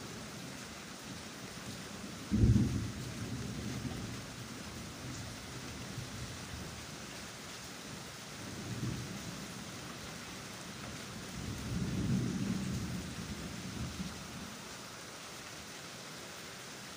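Steady rain with thunder: a sharp thunderclap about two seconds in, a softer rumble around nine seconds, and a longer rumble from about twelve to fourteen seconds.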